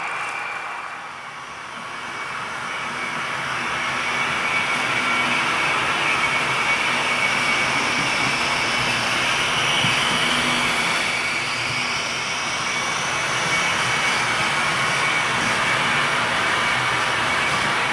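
H0-scale model freight train, an electric locomotive hauling a long line of tank wagons, rolling past on model track: a steady whirring of the locomotive's motor and the wagons' wheels on the rails, with a thin high whine underneath. It dips briefly about a second in, then swells as the train comes close and holds steady.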